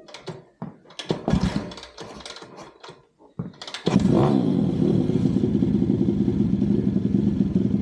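Single-cylinder pit bike engine sputtering in irregular bursts, then catching about three and a half seconds in, dropping in pitch and running steadily. This is its first start on a newly fitted carburettor.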